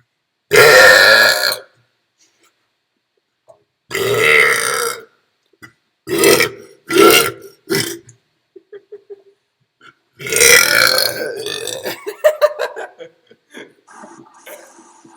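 A person burping loudly, one burp after another. There are long burps about half a second and about four seconds in, three short ones in quick succession around six to eight seconds, and a long drawn-out burp about ten seconds in.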